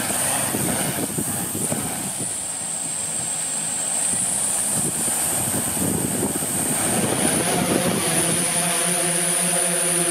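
DJI S1000 octocopter's eight electric motors and propellers running up for takeoff: a steady whirring with a high whine over it. Near the end it settles into a steadier hum of several even tones as the copter lifts off.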